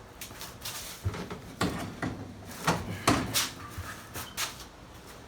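A string of sharp knocks and clunks from about one to four and a half seconds in, the loudest near the middle, as suspension parts are forced back into their mounting holes.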